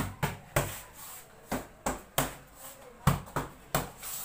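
Boxing gloves striking focus mitts in quick combinations: a sharp slap with each punch, about ten in bursts of two or three.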